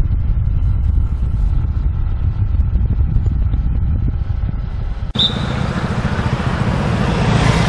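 Wind buffeting the microphone of a camera moving along with a group of cyclists: a heavy, uneven low rumble. About five seconds in it cuts abruptly to a brighter rushing noise of travel.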